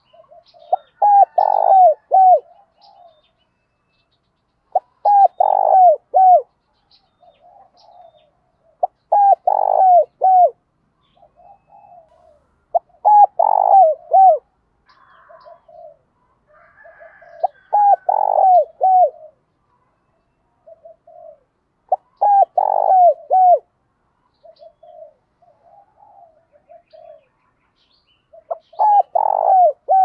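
Spotted dove cooing: a phrase of three or four coo notes, repeated about seven times at intervals of roughly four to six seconds, with softer notes between phrases.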